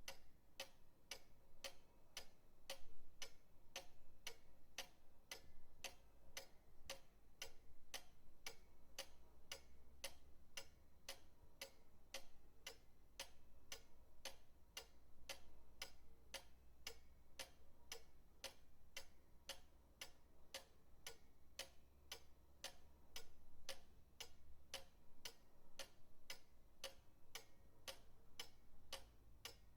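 Pendulum clock ticking steadily, with sharp even ticks about twice a second over a faint low rumble.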